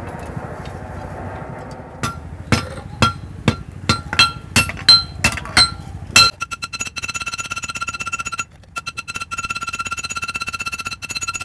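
Hammer blows on metal at the anvil, about ten ringing strikes two to three a second, forging a knife blade. After about six seconds they give way to a fast, steady mechanical buzz with a high whine, which breaks off briefly near the middle.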